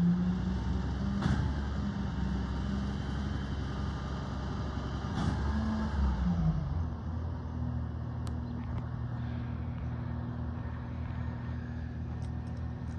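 Mack garbage truck engine running, its pitch rising and falling twice as it revs up and settles back, with a couple of sharp knocks; then it runs steadily.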